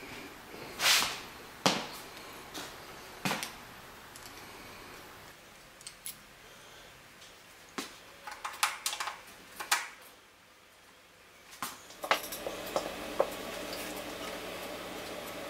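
Irregular clicks and knocks of hands working the fuse holder on the back panel of a vintage Tektronix 545A oscilloscope, with a short scraping rustle about a second in as the loudest sound. From about twelve seconds in a steady low hum sits under a few more clicks.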